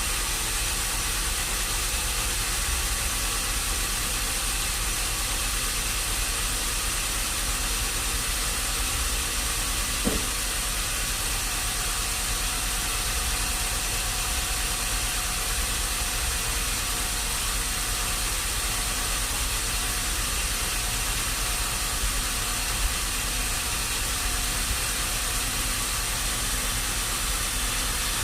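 A machine running steadily with a constant hiss, with one sharp click about ten seconds in.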